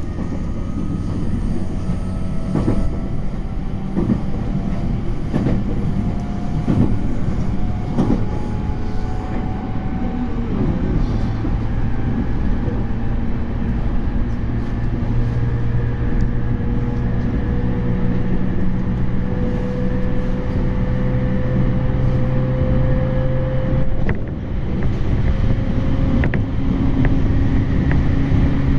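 E231-series electric train's Hitachi IGBT VVVF inverter and traction motors whining under power, several tones rising slowly in pitch as the train gathers speed, over the rumble of the running gear. About 24 s in the sound dips briefly, then the whine carries on higher.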